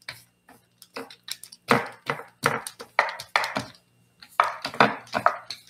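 A short baker's roller pushed quickly back and forth over crescent-roll dough on a round baking stone, knocking and clattering against the stone in a quick, irregular series of sharp knocks, most of them after the first second or so.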